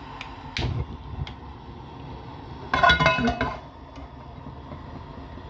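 Cookware being handled on a stove: a few light knocks, then a louder metallic clatter with a brief ringing, about three seconds in, as a frying pan is set on the hob, over a low steady background.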